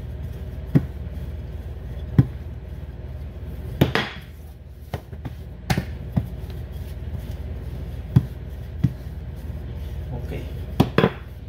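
Wooden rolling pin rolling out puff pastry dough on a countertop, with sharp wooden knocks at irregular intervals, about one every second or so, as the pin bumps and is set against the counter.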